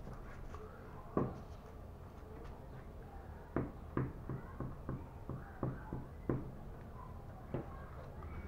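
Light taps and knocks of hands working on a tabletop while gluing tissue paper. There is one tap about a second in, a quick run of about ten between roughly three and a half and six and a half seconds, and a last one near the end.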